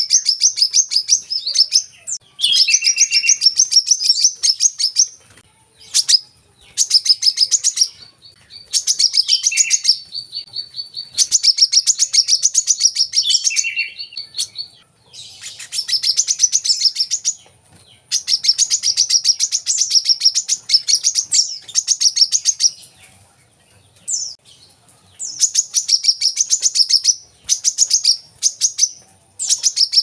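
Male brown-throated sunbird singing: phrases of rapid, high chattering notes lasting a few seconds each, separated by short pauses. About a third of the way in, a thin steady whistle is held for several seconds under the chatter.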